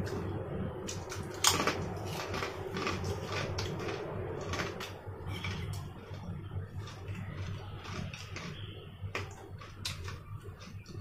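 A metal spoon clinking and scraping in a stainless steel bowl of rice, with scattered sharp clinks, the loudest about a second and a half in, and chewing between spoonfuls. A steady low hum runs underneath.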